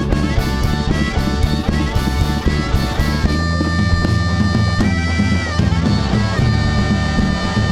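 Rock band playing an instrumental passage: a guitar holds long notes, sliding up and down between pitches twice, over bass and drums.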